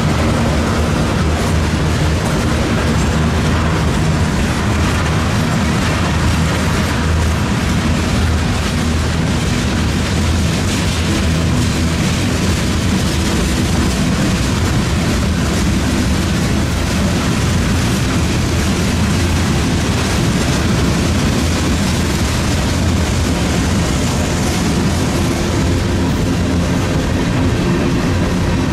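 Freight cars of a passing manifest train, tank cars and then covered hoppers, rolling by on the rails: a steady, loud rumble and clatter of steel wheels on track.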